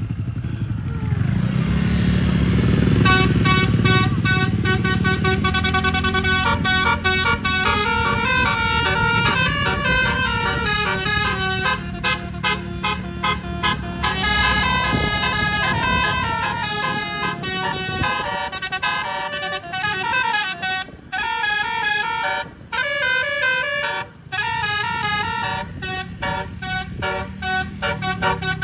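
A tourist bus's multi-tone "telolet" air horn plays a fast melody of changing notes and chords, starting about three seconds in and breaking off briefly a few times near the end. Before it starts, the bus's engine is heard running.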